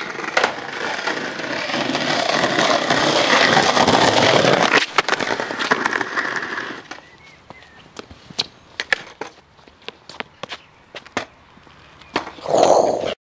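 Skateboard wheels rolling over paving stones, a steady rumble that grows louder for the first few seconds. After that come many sharp clacks of the board striking the pavers, and a short louder burst near the end.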